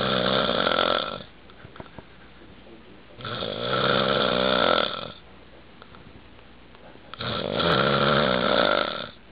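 A man snoring loudly: three long snores, each about two seconds, coming about every four seconds.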